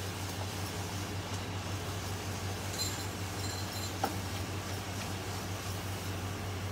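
A puri deep-frying in hot oil in a wok, the oil sizzling steadily over a steady low hum. A single click about four seconds in.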